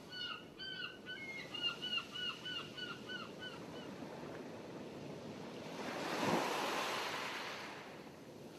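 A bird giving a quick series of short, repeated calls, about three a second, for the first four seconds or so, over the wash of open water. About six seconds in, a wave surges up and fades away.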